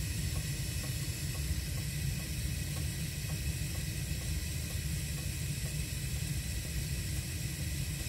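Natural-gas burners of a 1970s Crane 100 series cast-iron boiler firing on high: a steady low rumble with an even hiss of the flames.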